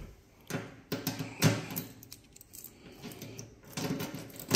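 A key being handled and worked into the lock of a metal turnstile column's cover: light metallic jingling and several sharp clicks, with a quiet spell in the middle and a cluster of clicks near the end.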